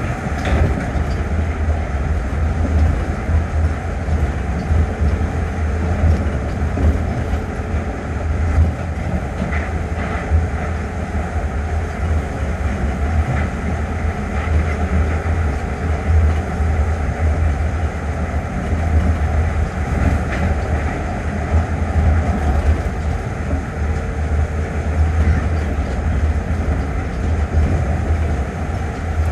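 Inside the car of an Osaka Metro New Tram 200 series, a rubber-tyred automated guideway train running at speed: a steady low rumble from the tyres on the guideway, with a faint steady tone over it.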